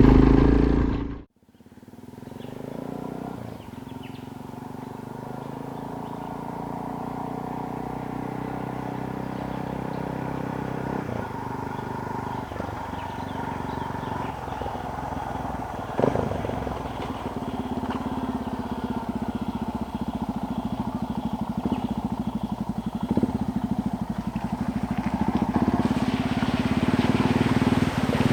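Suzuki DR650's single-cylinder four-stroke engine running steadily under way on a dirt road. The sound drops out sharply about a second in, then comes back and grows gradually louder, with a couple of sharp knocks along the way.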